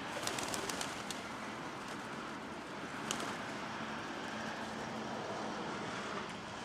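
Steady background traffic noise, with a quick run of sharp wing claps in the first second as feral pigeons take off, and one more sharp clap about three seconds in.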